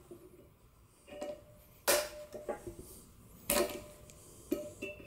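Vice grips clinking and clanking against a seized exhaust manifold stud as it is worked loose: a handful of sharp metal knocks, the loudest about two and three and a half seconds in.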